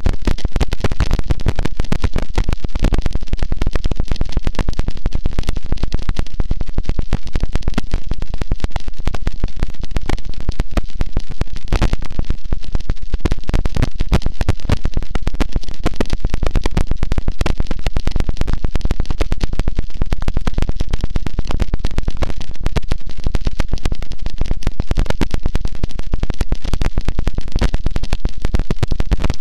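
Harsh noise wall: a loud, unchanging wall of heavily distorted noise, thick with crackle from a deep rumble up to hiss, with no rhythm, pitch or change.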